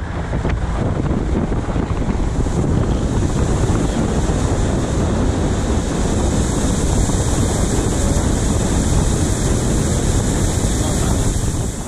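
Wind buffeting the microphone and water rushing past the hull of a fishing boat under way, a steady loud noise with no break.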